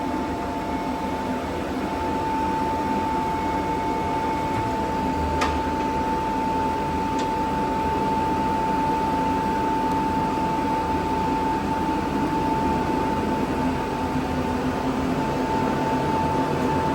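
Woodfast PT410a planer thicknesser running steadily, a constant machine hiss with a steady whine, with a sharp click about five seconds in.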